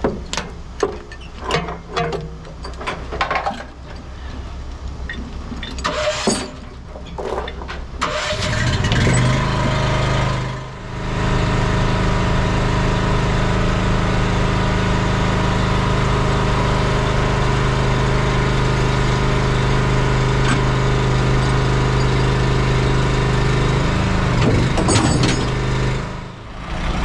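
Scattered metal knocks and clanks, then about eight seconds in a diesel engine starts and runs steadily, with one brief dip soon after it starts.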